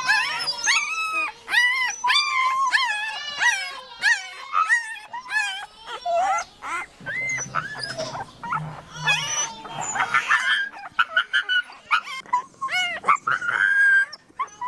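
Puppies yelping in short, high-pitched calls that rise and fall, several a second for the first six seconds or so, then more scattered.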